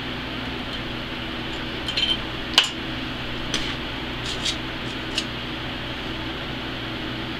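A handful of light metallic clicks and taps, the sharpest about two and a half seconds in, over a steady hum with a few low steady tones.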